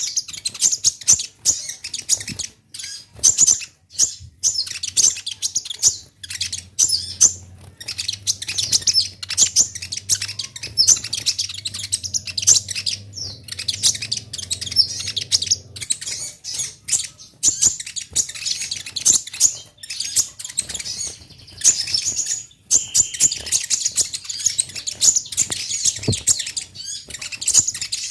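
Kolibri ninja (konin) sunbird singing in full voice: rapid, high twittering chirps and trills in a dense run with short pauses. A faint low hum sits underneath from about six to sixteen seconds in.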